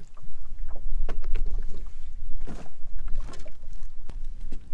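Wind buffeting the microphone with a steady low rumble, and water slapping against a small rowboat's hull. Scattered knocks and splashes come from a landing net being lifted and handled at the boat's side.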